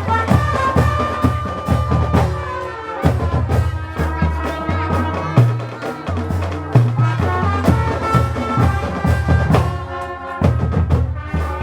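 Drum band playing: bass drums and dense percussion strokes under a sustained wind-instrument melody.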